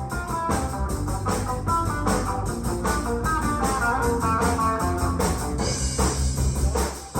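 A live rock band playing a song at full volume during a sound check: quick picked electric guitar notes over bass guitar and drums.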